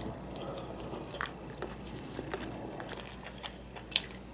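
A person eating with chopsticks: chewing and biting mouth sounds with a few short, sharp clicks, the loudest about three and four seconds in.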